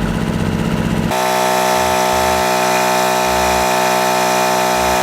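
Small 800-watt portable generator engine running steadily under a heavy electrical load. About a second in, the sound changes abruptly to an even, steady hum with a strong buzzing tone.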